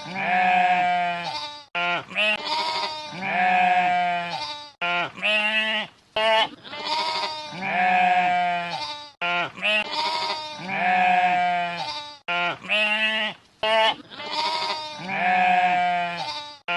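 Sheep bleating: the same sequence of short calls and a longer wavering bleat repeats identically about every two and a half seconds, as if looped.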